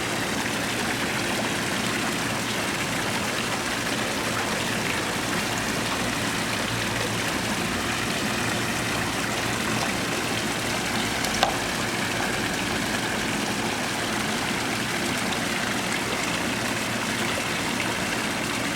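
Steady running and splashing water of a backyard koi pond, with a low steady hum underneath. One short click about eleven seconds in.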